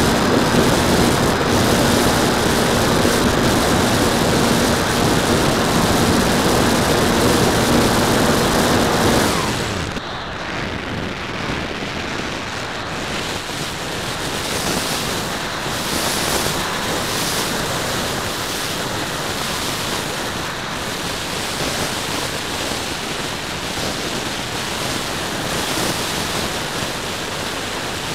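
Hotliner's electric motor and propeller running at full power with a steady whine over rushing air; about nine and a half seconds in the motor cuts and winds down. Wind then rushes over the airframe as it glides with its folding propeller folded.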